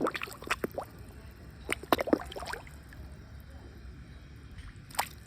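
Water splashing and dripping in short, irregular spatters over the first two or three seconds, then a low steady background with one sharp click near the end.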